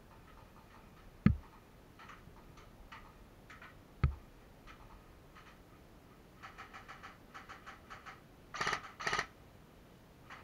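Airsoft guns firing: a run of shots about five a second, then two short, louder bursts near the end. Two sharp low knocks come earlier.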